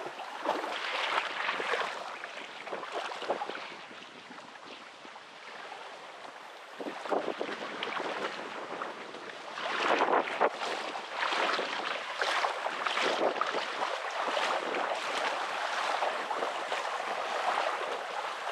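Shallow sea water splashing and washing in uneven surges, quieter a few seconds in and loudest about ten seconds in.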